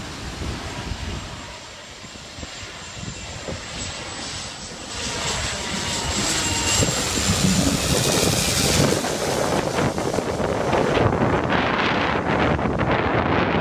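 Small twin-engine propeller plane flying low overhead on its landing approach, its engines growing louder about halfway through as it passes close by, with a thin high whine that dips slightly in pitch. Wind buffets the microphone near the end.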